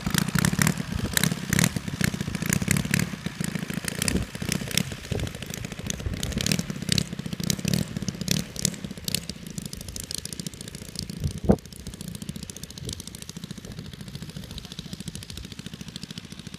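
Valach 120 B2-4T twin-cylinder four-stroke engine of a large-scale RC model plane running at low throttle with an uneven popping, growing fainter as the plane moves away. One sharp click about eleven and a half seconds in.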